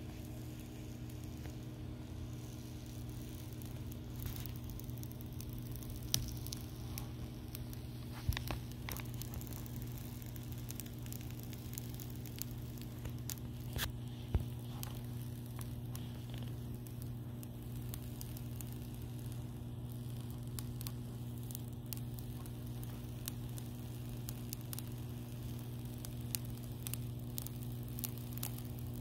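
Clear plastic film being slowly peeled off a plastic prep mat, giving off scattered small clicks and crackles as the adhesive lets go, a few of them louder. A steady low hum runs underneath.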